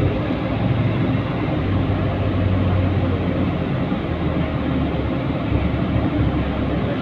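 Engine hum and road noise of a moving vehicle heard from inside its cabin: a steady low drone over a wide rushing noise, with the drone swelling between about two and five seconds in.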